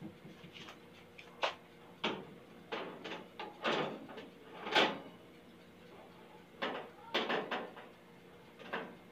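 Scattered household knocks and clunks, about a dozen short ones, the loudest near the middle.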